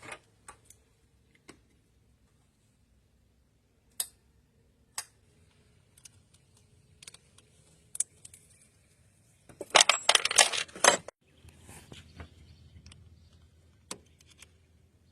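Small metal objects being handled: a few separate sharp clicks and clinks, then a loud jangling of metal for about a second and a half around ten seconds in.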